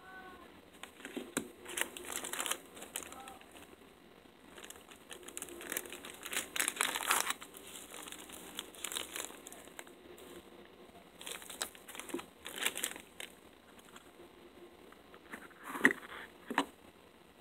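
Plastic packaging crinkling and rustling in irregular bursts as small survival-kit items are handled, among them a sealed emergency-blanket packet. Near the end comes a sharp click and knock, the loudest sound, as the metal flashlight and tactical pen are handled in the tin.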